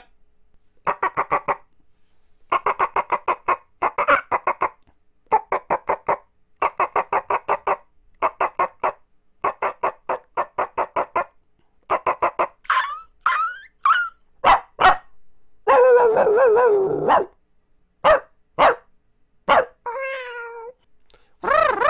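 A man's voice imitating animal sounds. First come about ten short bursts of quick, repeated yap-like pulses. About halfway through they give way to wavering, gliding whines and drawn-out howl-like calls, heard as a dog.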